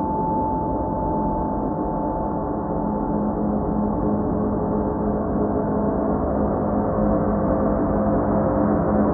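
Ambient background music: a steady drone of many held low tones with no beat. A higher ringing tone carried over from before dies away within the first second.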